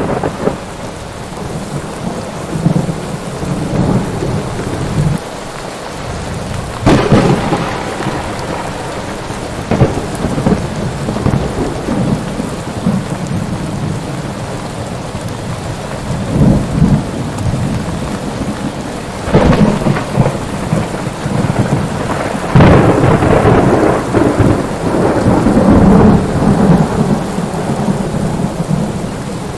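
Steady rain with thunder: several sudden cracks, about a quarter of the way in, about two-thirds in and again soon after, each rolling off into a long low rumble.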